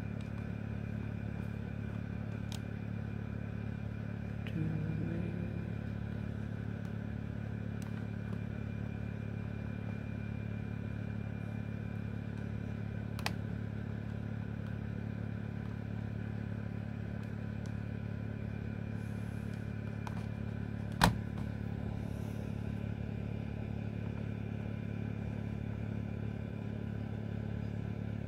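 Steady low hum with a few sharp clicks. The loudest click comes about three quarters of the way through. The clicks come as the tuning buttons of a Sony WM-FX425 Walkman radio are pressed.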